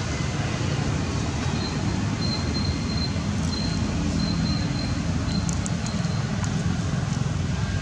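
Steady low rumble of background noise, with a faint high-pitched tone coming and going in the first half.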